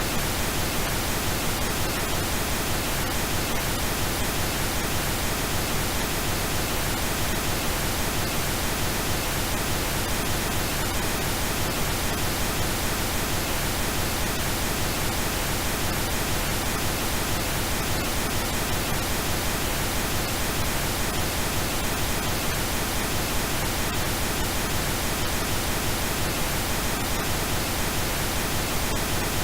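Steady synthetic pink noise: an even, unchanging hiss with a full low end.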